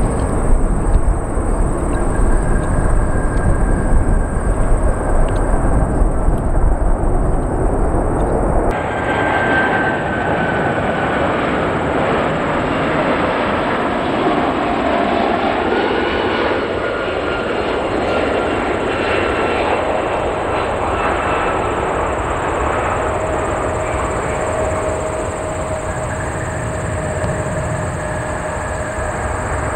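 Jet airliner engines running: a steady, loud rumble with a faint whine, changing abruptly about nine seconds in to a second stretch where the engine whine slowly falls in pitch.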